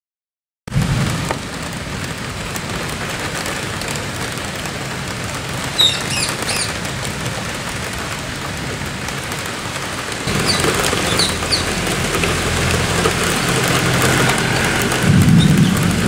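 Steady rain with low rumbles of thunder, cutting in after a brief silence; the rumble swells about ten seconds in and is loudest near the end. A few short, high bird chirps come around six seconds in and again around eleven seconds.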